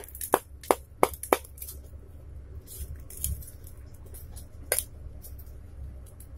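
Sharp metallic clicks and taps as the parts of a cotton candy machine's soldered heating head are pushed apart and handled by hand: a quick run of about five clicks in the first second and a half, a few fainter ones, then one more sharp click about three quarters through.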